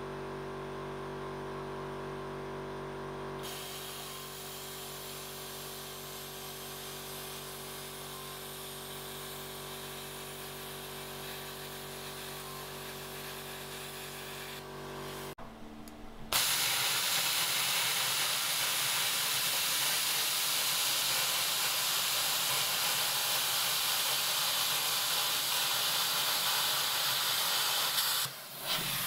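Air plasma cutter cutting a hole through the stainless steel wall of a brew kettle: a steady hiss of the plasma arc and air over a steady hum. The hiss starts a few seconds in and is louder after about sixteen seconds.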